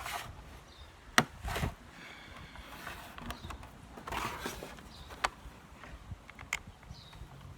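A few sharp clicks and knocks of hard plastic parts being handled while an item is taken apart for scrap, with a short rustle about four seconds in.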